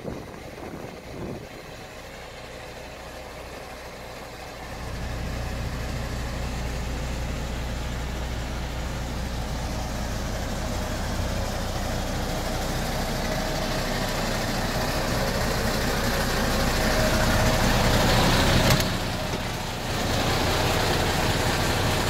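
Heavy diesel engine running steadily: a low hum that comes in about five seconds in and slowly grows louder, with a short click and dip near the end.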